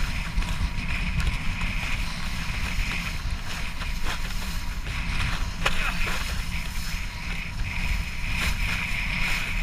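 Kiteboard planing fast over choppy water: a steady rumble of wind buffeting the action-camera microphone, with the hiss of spray thrown off the board swelling and fading.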